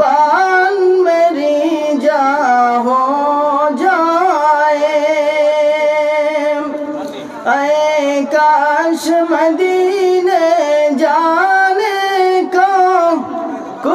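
A man's voice singing a gojol, an Islamic devotional song, solo and without instruments, into a microphone. He holds long notes with wavering, ornamented turns, with a short break about seven seconds in.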